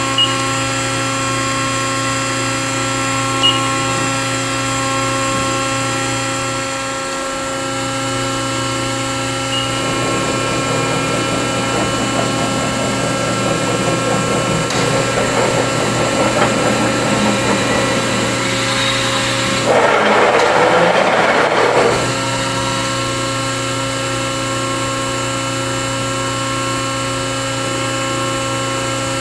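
Accurpress 7608 hydraulic CNC press brake running with a steady machine hum. There are two sharp clicks in the first few seconds, a busier mechanical noise from about ten seconds in, and a louder rushing burst lasting about two seconds near the twenty-second mark before the steady hum carries on.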